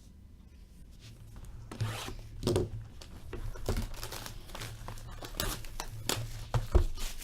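Plastic wrapping on hockey card packaging being torn open and crinkled by hand, in irregular crackling rips with a few sharper snaps.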